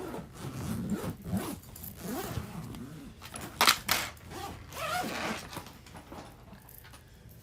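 Packing and rummaging noises: clothes and bags being handled, with a short loud zipper-like rasp about three and a half seconds in.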